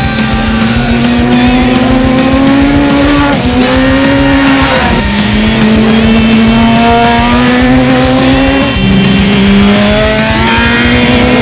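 Inline-four engines of 600-class sportbikes revving high as they are ridden hard through corners. The pitch climbs slowly and drops sharply several times. Rock music plays underneath.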